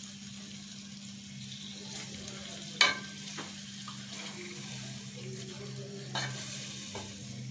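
Chicken, onion and tomato sizzling in a stainless steel pot while a wooden spatula stirs and scrapes through them, over a steady low hum. A sharp knock about three seconds in, and a smaller one near six seconds, as the spatula strikes the pot.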